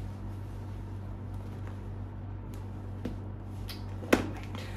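Shoes being handled: a few light taps, then one sharp knock about four seconds in, over a steady low hum.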